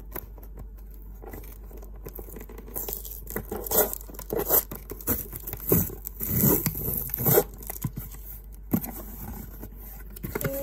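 Clear packing tape being peeled and ripped off a small cardboard box, with the cardboard flaps scraping and rustling as they are pulled open. There is a run of loud tearing rips from about three to seven seconds in, with quieter handling before and after.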